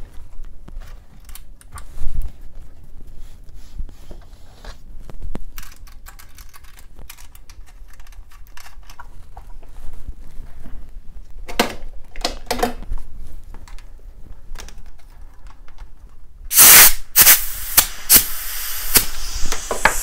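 A Hutchinson Fusion tubeless road tire being worked onto its rim and the wheel handled: scattered clicks and knocks, with a louder knock about two seconds in. Near the end come loud, short blasts of hissing compressed air from a compressor's air hose.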